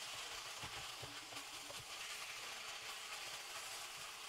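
Broccoli leaves, onions and peppers sautéing in a pan: a soft, steady sizzle with rustling, scraping and irregular light knocks as a wooden spoon stirs and tosses the leaves.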